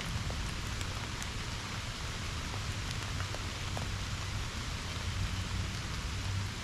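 Steady rain falling, an even hiss with a few separate drop ticks.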